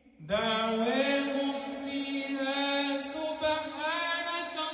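An imam's voice chanting in the melodic style of Quran recitation. It enters about a third of a second in after a brief pause, then holds long notes with sliding ornaments.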